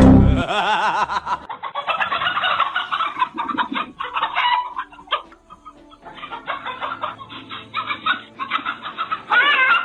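Chickens clucking and squawking in quick, wavering calls, with a short pause partway through and a loud flurry of squawks near the end.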